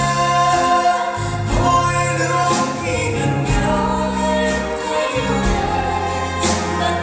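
Band music from a slow pop love song, with sustained chords and drums and cymbals keeping a steady beat.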